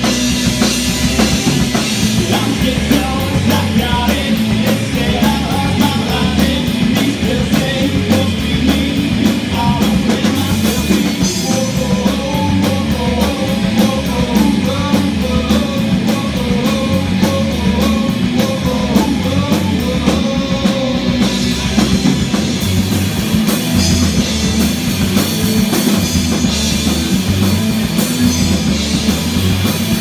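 Live rock band playing: electric guitars over a steady drum-kit beat.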